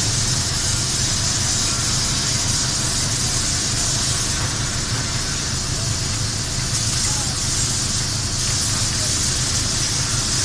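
Airless spray gun spraying paint onto a steel ship's hull: a steady hiss over a steady low machine hum.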